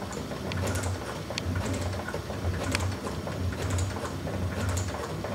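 South Bend metal shaper running, its ram stroking back and forth as it takes a roughing cut on an aluminum casting. A low drone pulses about twice a second, with sharp ticks from the cut and the chips.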